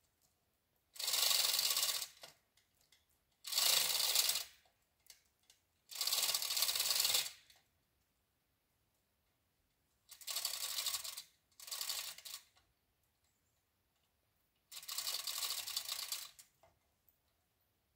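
Manual 2-ton chain fall (chain hoist) being worked in spurts. Its chain rattles and its ratchet clicks in six spells of about a second each, with pauses between them and a longer gap in the middle. The hoist is taking up tension on a line rigged to a leaning maple.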